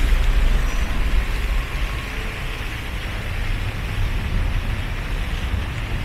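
Street ambience dominated by road traffic noise, an even rumble with no distinct events.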